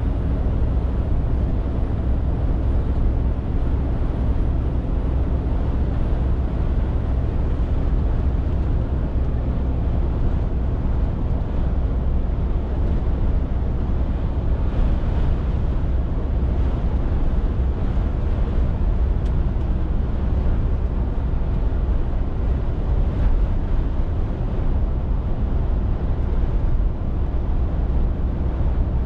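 Scania R450 articulated lorry driving at steady speed: a low, steady engine drone with road and tyre noise.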